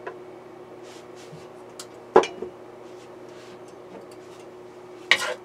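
A steady low hum with a single sharp knock about two seconds in, a utensil or cup striking the frying pan. Near the end a wooden spatula starts scraping across the non-stick pan.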